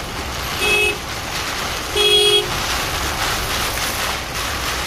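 A car horn honks twice, a short toot about half a second in and a longer one about two seconds in, over the steady noise of heavy rain and traffic heard from inside a car.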